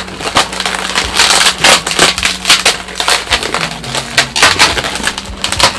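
Inflated black latex modelling balloons squeaking and crackling as they are twisted and rubbed against each other by hand, many quick squeaks one after another, while a twist is worked into a pinch twist.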